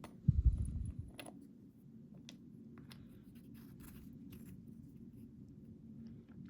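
Small metal clicks and scrapes of lock parts being handled as a Storm Crow Bombay Sapphire challenge lock is reassembled after gutting, with a dull thump near the start.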